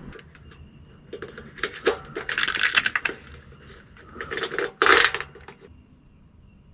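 A plastic cable tie being fed and ratcheted tight around corrugated split-loom tubing: bursts of quick plastic clicking and rattling, with the loudest burst about five seconds in.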